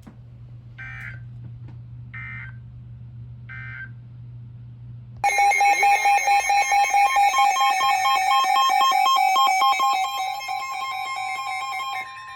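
NOAA Weather Radio alert sequence: three short buzzy data bursts of the SAME header over a low hum, then a loud alert tone that warbles rapidly between two pitches for about seven seconds, signalling that a severe thunderstorm warning follows. Near the end the warble settles to one steady pitch.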